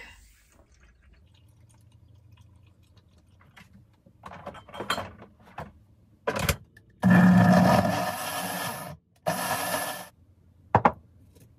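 Personal bullet-style blender running in two bursts, about two seconds and then about one second, blending a fruit smoothie. A few knocks and clatter of kitchen handling come before it.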